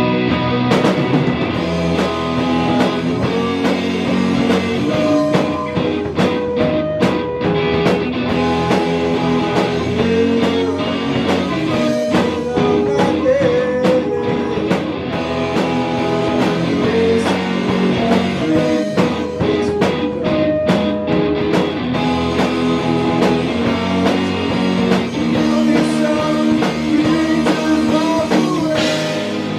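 A rock band playing a song live: guitar over a drum kit, with drum hits throughout.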